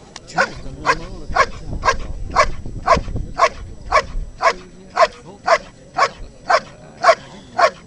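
A dog barking steadily at a helper standing in a blind, about two barks a second, each bark short and sharp, holding him at bay in the bark-and-hold exercise.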